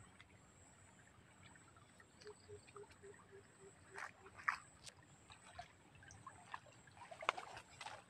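Soft, sporadic splashing and dripping of stream water as a gill net is handled while wading. About two seconds in comes a short, low pulsed call of about six pulses a second, over a faint steady high hiss.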